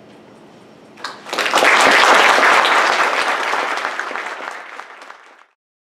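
Audience applauding. It swells in about a second in, is loudest soon after, then tapers off and is cut off abruptly near the end.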